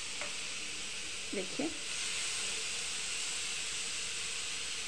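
Marinated mutton skewers sizzling in hot butter and oil on a tawa: a steady frying hiss.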